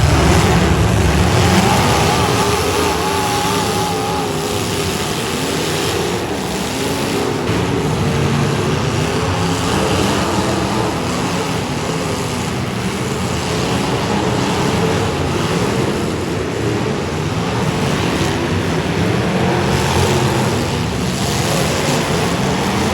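Demolition derby car engines running loud and continuous, their pitch rising and falling as they rev.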